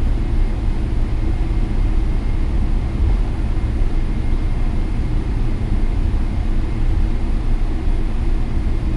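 Steady low rumble of cabin noise inside a Boeing 777-300ER on the ground just after landing, taxiing in with its engines at low power.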